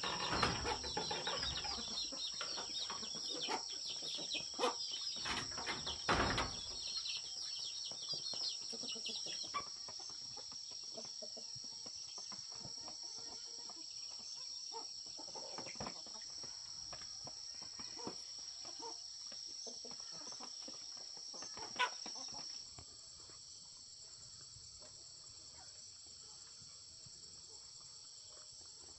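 Farmyard ambience: a steady high insect drone with domestic fowl calling and scattered knocks, busiest in the first third. The insect drone cuts off about two-thirds of the way through, and the sound grows quieter.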